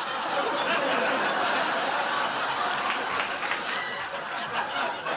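Studio audience laughing as a crowd, a long wave of laughter that eases off a little toward the end.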